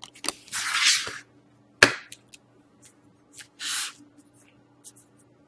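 Trading cards and packs being handled: two short rustling swishes and a few sharp clicks and snaps.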